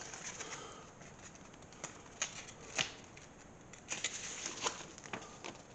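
Paper booklets being handled and their pages leafed: a soft rustling with several short, crisp paper flicks.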